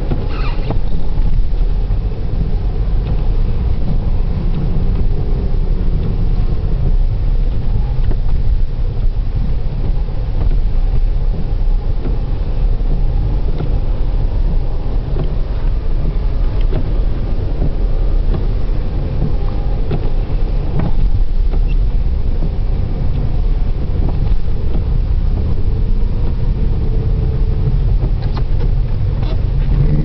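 Steady low rumble of a 1993 Opel Vectra 2.5 V6 on the move, heard from inside the cabin: engine and road noise.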